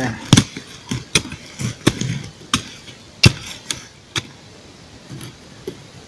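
Small camp shovel chopping and scraping into forest soil and roots while digging a pit, a series of sharp strikes roughly every half second, fewer and fainter near the end.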